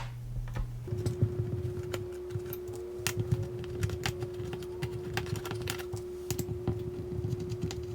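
Small precision screwdriver turning out the bottom-case screws of a MacBook Air, giving irregular light clicks and ticks of metal on metal. A steady low hum comes in about a second in.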